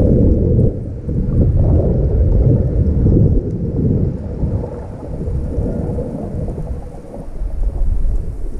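Loud, muffled, uneven rumble of water moving against an underwater camera housing, swelling and fading every second or two. No dolphin whistles or clicks stand out.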